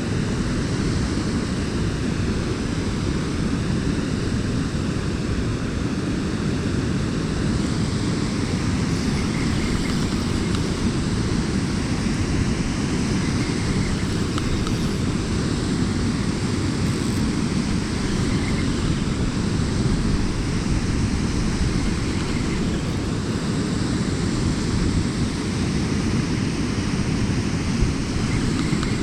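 Steady rush of river water flowing below a dam, with wind noise on the microphone.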